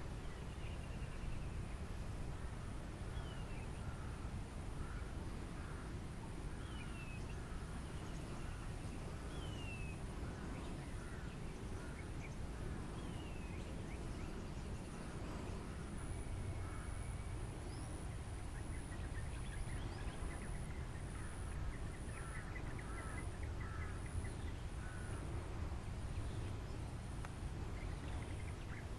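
Wetland ambience: several birds calling in the background with short repeated notes and falling whistled slurs, over a steady low rumble. A thin high insect buzz pulses about once a second in the second half.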